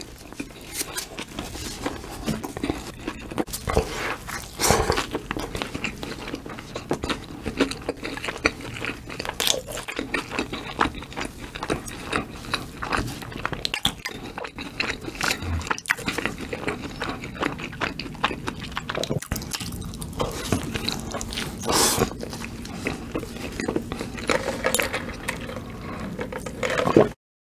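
A person chewing a cheeseburger with mouth open close to the microphone: dense, wet smacking and clicking mouth sounds.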